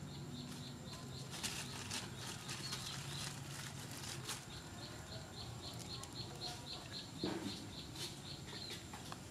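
Outdoor ambience with a short, high chirp repeated rapidly, about four a second, through the second half. Scattered light clicks and rustles come in the first half.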